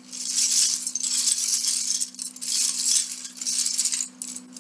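Hands rummaging through a pile of loose plastic Lego bricks, the pieces clattering and rattling against each other in about four short bouts.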